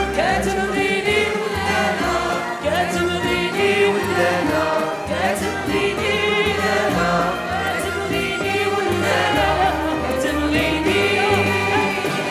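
Live Moroccan Andalusian orchestra music: ouds and violins playing while a chorus of voices sings, over a low bass line moving in a steady rhythm.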